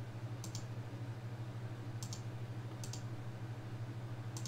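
A few sharp computer mouse clicks, each a quick press-and-release pair, about a second or so apart, over a steady low electrical hum.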